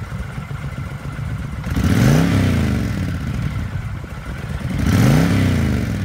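2010 Honda Fury's 1300 cc liquid-cooled, fuel-injected V-twin idling and revved twice, about two seconds in and again about five seconds in, each rev rising and dropping back to idle.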